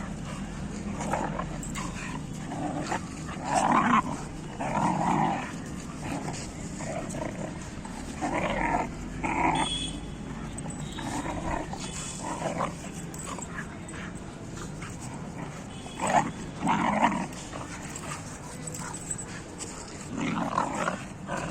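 Dogs vocalizing in play: short, irregular bursts of growling and yipping, with gaps between them.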